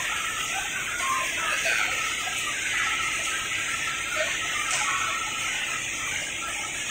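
Steady hissing background noise at a fish market stall, with a few faint, scattered short sounds and one faint click.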